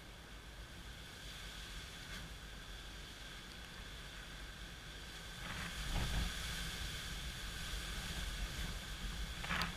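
Gusty wind ahead of Hurricane Irma thrashing palm trees, with rain hiss and wind buffeting the microphone. The wind strengthens about halfway through, with a strong gust around six seconds, and a short sharp sound comes near the end.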